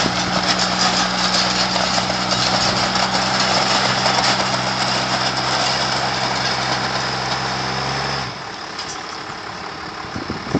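A vehicle engine running at a steady idle, a low even hum with a hiss over it, that stops about eight seconds in.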